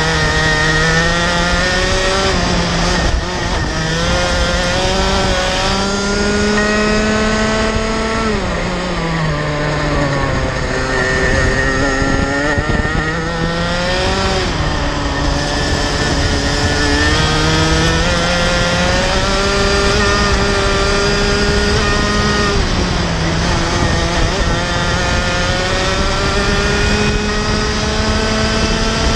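Rotax two-stroke kart engine at full throttle. Its pitch climbs steadily as the kart gathers speed, then drops sharply about four times as the driver brakes for corners, and climbs again each time.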